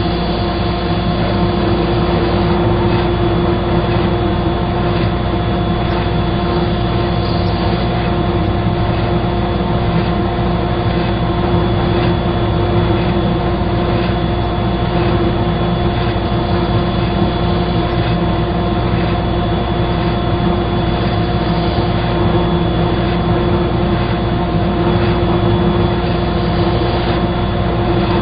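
A woodworking power tool running steadily, its electric motor giving a constant hum with a higher whine above it and no pauses.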